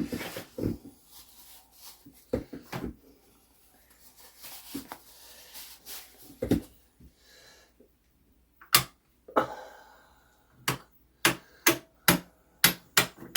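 Scattered knocks and handling of metal clock parts, then a run of about a dozen sharp clicks, roughly two a second, in the second half: the ratchet of a mainspring winder clicking as it is cranked to wind up a clock mainspring.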